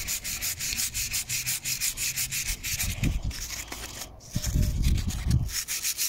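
Sandpaper, likely 240 grit, rubbed back and forth on the kerb-damaged rim of an alloy wheel in quick, even strokes, about six a second, to take down the kerb rash. The strokes pause briefly about four seconds in.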